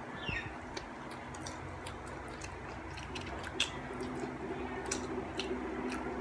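A person chewing a bread roll, with scattered short mouth clicks over a steady low hum.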